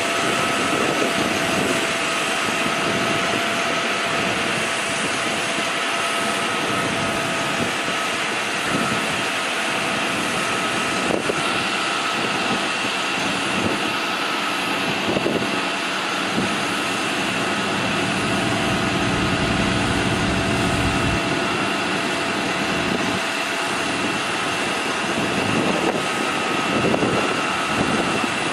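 A 6.7-litre inline-six turbo diesel engine running steadily at idle, with a steady high whine over it.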